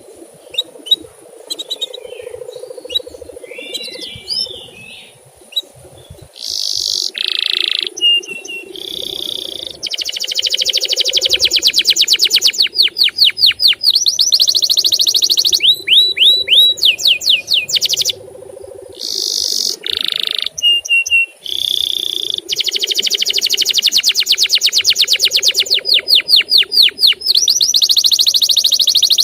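Male canary singing: a few seconds of soft chirps, then loud, high, rapid trills and fast runs of sweeping 'cuit cuit' notes, with short pauses between phrases.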